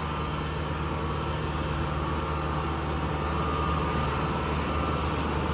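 Kubota DC-60 combine harvester's diesel engine running steadily under load as the tracked machine creeps up loading ramps onto a truck.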